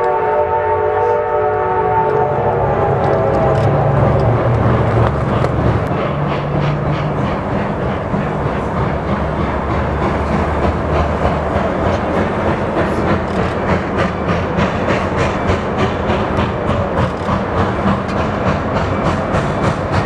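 Reading T1 No. 2102 steam locomotive sounding its six-chime whistle, a chord held for about the first three seconds, then the moving locomotive with an even rhythmic beat of about three strokes a second.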